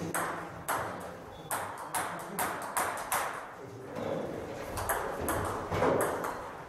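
Table tennis rally: the celluloid-type ball struck back and forth by paddles and bouncing on the table, an irregular series of sharp pocks with a short echo after each.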